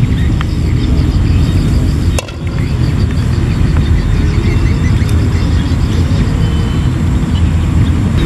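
Wind buffeting the microphone: a steady low rumble, with a faint rapid high chirping over it. The rumble drops briefly with a click about two seconds in.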